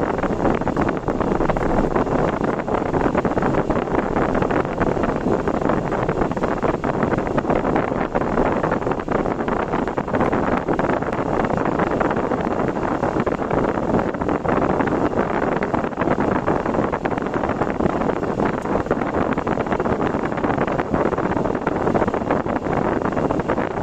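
Steady road and wind noise of a car being driven, an even rushing sound with no distinct engine note.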